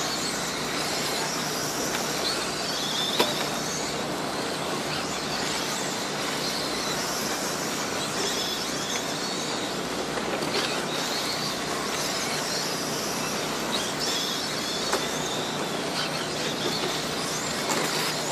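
Radio-controlled dirt oval late model cars racing: high electric motor whines rise and fall in waves as the cars lap, over a steady noise of tyres on dirt, with a single sharp knock about three seconds in.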